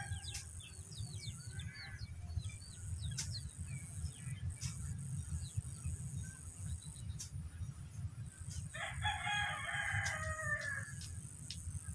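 A rooster crows once, about eight and a half seconds in, one long call of over two seconds. Small birds chirp throughout, over a steady low rumble and a high-pitched buzz that cuts in and out.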